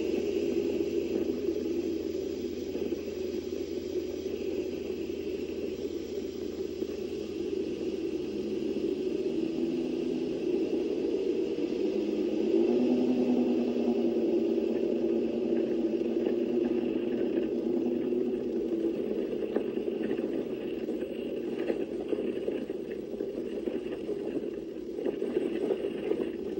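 Bass boat running at speed: outboard motor, wind and hull-on-water noise, heard through a computer's speakers, with scattered knocks and rattles in the second half.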